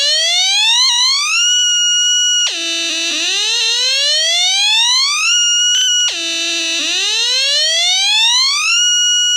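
Electronic alarm siren from a loudspeaker: a tone that sweeps up from low to high over about two seconds, holds steady for about a second, then drops back and sweeps up again, three times.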